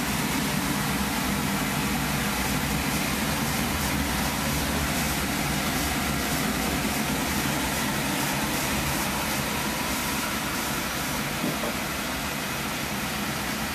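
Oil burner on a cast-iron boiler running: a steady, even mechanical rumble with a low hum, easing slightly near the end.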